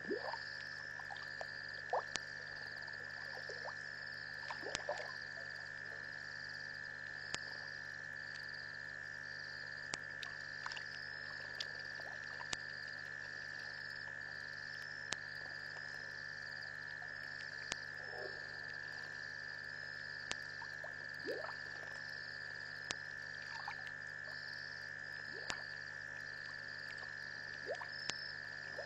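A night chorus of frogs and insects at a waterhole. It is a steady high drone with a higher trill pulsing about once a second over it, plus scattered sharp clicks and a few short low calls.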